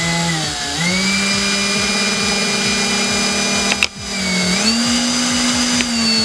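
Electric drill running as it bores holes through a stack of taped popsicle sticks. Its motor whine steps up in speed about a second in, stops for a moment just before 4 seconds, then picks up again a little faster.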